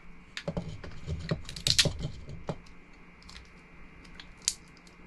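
Dungeness crab shells being cracked and handled with channel-lock pliers: a run of irregular sharp cracks and clicks, loudest in a quick cluster a little under two seconds in.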